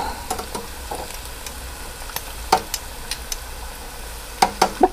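Breaded bacon deep-frying in hot oil, a steady sizzle. Metal tongs click against the fryer basket as the pieces are moved, with a louder click about halfway and a quick run of clicks near the end.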